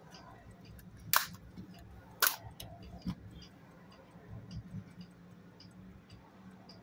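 Two sharp clicks about a second apart, then a softer knock, as the small hard parts of a Polaroid SX-70 camera are handled during disassembly. Underneath runs a faint regular ticking, about three ticks a second, and a low steady hum.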